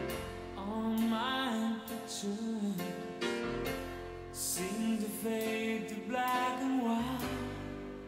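Background music: a slow song with a singing voice gliding over plucked keyboard chords.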